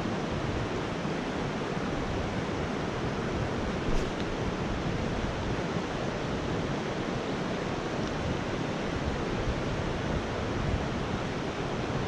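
Shallow rocky stream flowing over riffles: a steady rush of water, with one short click about four seconds in.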